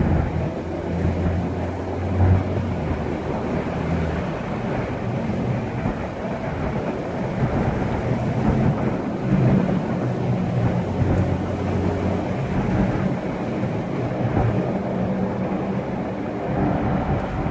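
Car engine and tyre/road noise heard from inside the cabin while driving. A low engine hum grows stronger and fades again several times over a steady rumble.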